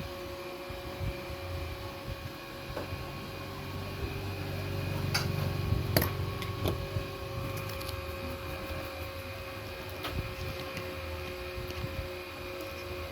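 A steady mechanical hum with several constant tones, swelling a little in the middle, with a few small sharp clicks, the sharpest about five and six seconds in.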